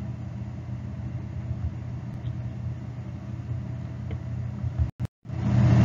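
Steady low hum with an even hiss: background noise on the narration track, cutting out to silence for a moment about five seconds in.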